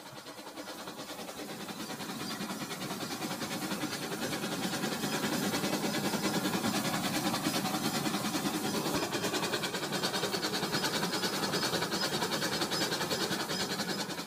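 Battery-powered toy train running on plastic track: its motor whirs and its wheels rattle with a fast, even clicking, growing louder over the first few seconds as it comes near and staying loud while the cars pass close, then easing slightly near the end.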